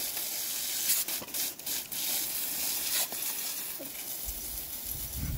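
Garden hose nozzle spraying a steady hissing jet of water onto a dog and the driveway. A low rumble comes in near the end.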